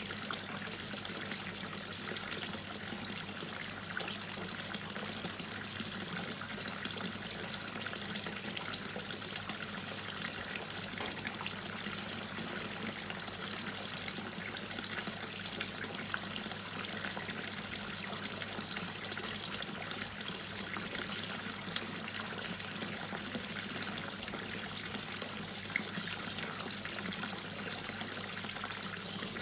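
Water dripping and trickling steadily, with many small drop sounds scattered through an even splashing hiss.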